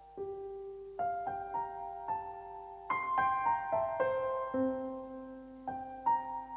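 Background music: a slow, gentle solo piano melody, one note or chord at a time, each ringing on and fading.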